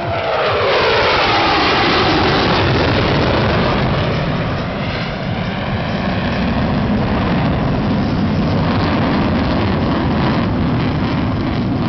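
F-15 fighter jet making a display pass. The engine roar carries a whine that falls in pitch over the first few seconds as the jet goes by, then settles into a steady, loud, deep rumble.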